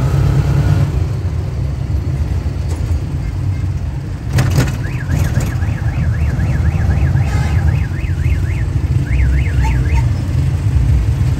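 Steady low rumble of a moving road vehicle. A sharp knock comes about four and a half seconds in, then a warbling electronic alarm tone that rises and falls about three times a second, in three short spells.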